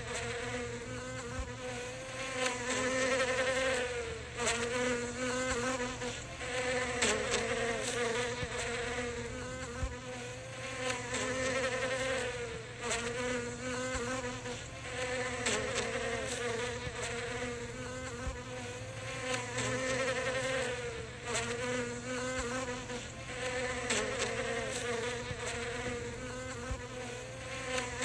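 A bee buzzing close up while foraging. The buzz wavers in pitch and swells and fades every second or two, with short breaks between.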